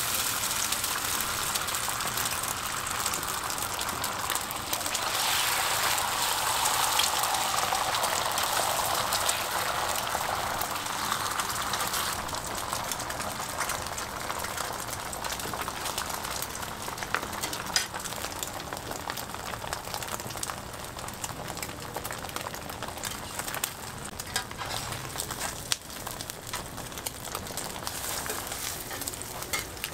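Beaten egg sizzling and frying on a hot flat-top griddle, louder in the first half, with scattered sharp clicks and scrapes from a metal spatula as the omelet is worked and rolled.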